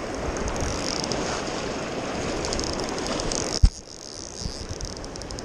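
Rushing river rapids mixed with the rub of a glove against the microphone, broken by one sharp knock on the camera about three and a half seconds in, after which the noise is quieter.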